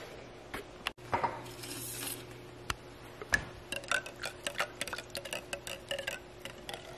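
A straw stirring water in a ceramic mug, tapping and clinking quickly against the mug's side from about three seconds in. A short clatter comes about a second in.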